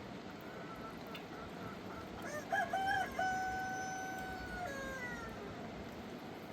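A rooster crowing once, starting about two seconds in: a few short rising notes, then a long held note that drops away at the end, over a steady rushing background.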